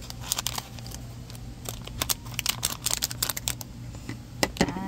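Small scissors snipping through a foil blind-bag packet, and the foil crinkling as the bag is handled and opened: a run of sharp crackles and clicks.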